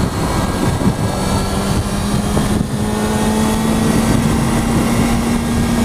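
Kawasaki ZX-6R inline-four engine running at steady freeway cruise, its note edging slightly higher in pitch, under a constant rush of wind and road noise.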